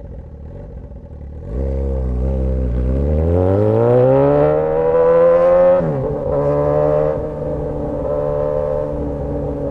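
Straight-piped Suzuki GSX-S1000 inline-four under acceleration. A low rumble at first, then about a second and a half in it gets suddenly louder and the engine note climbs steadily for about four seconds. Near six seconds in the pitch drops sharply, then holds at a steady cruise.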